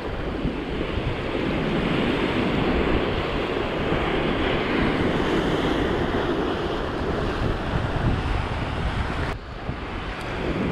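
Sea waves breaking and washing over shore rocks in a steady rush, with wind buffeting the microphone.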